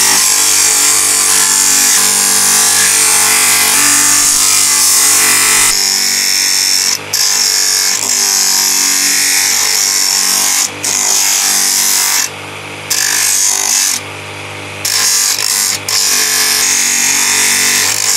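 Electric bench grinder running, with the wooden handle scales of a full-tang kukri pressed against its abrasive wheel: a loud, continuous grinding of wood being ground down to the shape of the tang. Several short breaks, where the work is lifted off the wheel, leave only the motor's steady hum.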